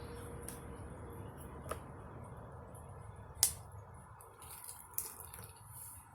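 A low steady hum with three short, sharp clicks spread across it, the loudest about halfway through.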